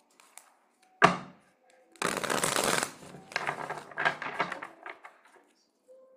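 A deck of tarot cards shuffled by hand: a sharp tap about a second in, then a dense burst of shuffling followed by looser flicking and rustling of the cards.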